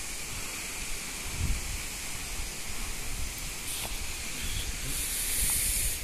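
Steady rushing noise of a waterfall, with a brief low rumble about one and a half seconds in.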